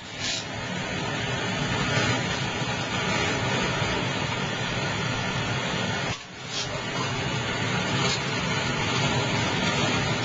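Food frying in oil in a pan: a steady sizzle, dipping briefly twice.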